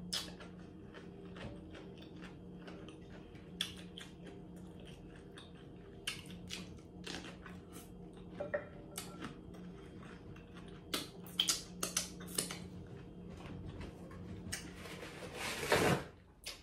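Close-up eating sounds: chewing, with many short sharp clicks from the mouth and the food, over a steady low hum. Near the end, paper towel rustles and tears, the loudest sound.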